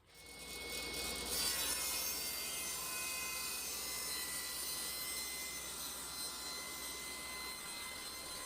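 Power saw running and ripping thin hardwood strips for a laminated handle: a steady whine with the hiss of the cut, building over the first second or so and then holding even.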